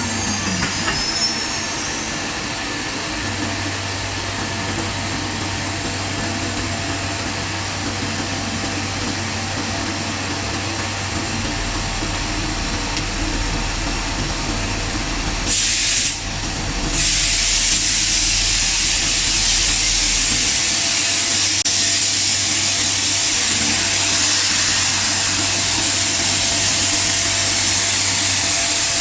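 ATC CNC router running, a steady machine noise with hiss. About halfway through there is a short hissing burst, and after it a louder, steady hiss carries on.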